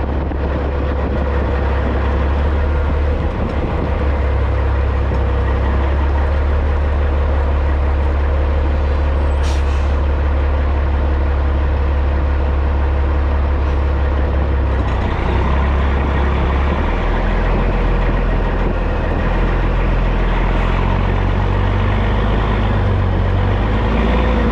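Caterpillar C15 diesel of a 2006 Peterbilt 379 running steadily at low revs as the loaded B-train rig backs slowly, its note shifting lower about fifteen seconds in. A short sharp hiss about nine seconds in.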